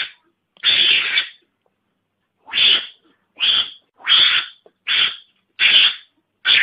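Recorded Javanese mongoose (garangan) calls played as a hunting lure: a run of short, harsh, hissing calls about one every second, after a brief pause near the start.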